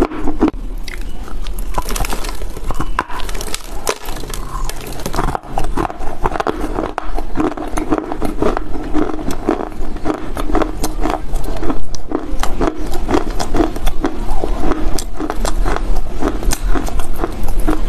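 Biting and chewing chunks of dry Chinese loess earth close to a lapel microphone: dense, irregular crunching and crackling.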